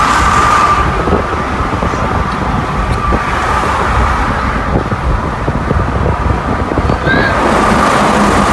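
Wind and road noise of a car driving at highway speed, heard from inside, with a steady thin whistle running through it.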